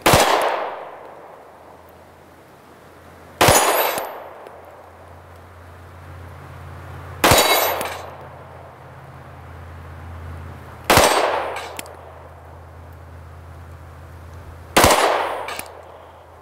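Glock 43 9mm pistol fired five times in slow, deliberate single shots, about one every three and a half to four seconds, each shot ringing out and dying away over about a second.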